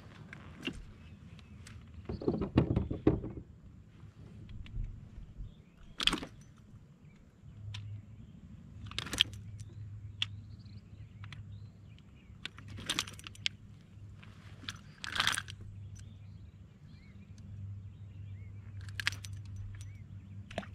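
Fishing gear being handled on a plastic kayak: scattered clicks and rattles, a cluster of heavier knocks a couple of seconds in, and several short hissy bursts. A low steady hum comes in about eight seconds in.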